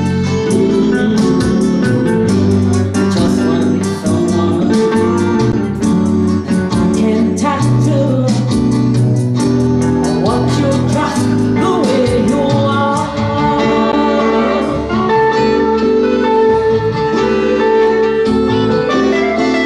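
Live music: a woman singing into a microphone, accompanied by a Stratocaster-style electric guitar.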